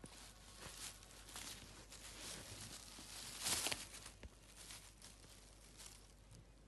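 A thin clear plastic bag crinkling and rustling in short, irregular bursts as a cat noses and pushes its head around inside it; the loudest rustle comes about three and a half seconds in.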